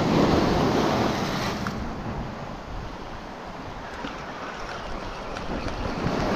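Sea waves breaking and washing up the shore. One surge comes at the start and fades away, and another builds near the end, with wind rumbling on the microphone.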